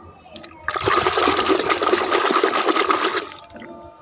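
Water splashing and sloshing in a plastic bucket of soapy water, a loud continuous rush starting a little under a second in and lasting about two and a half seconds.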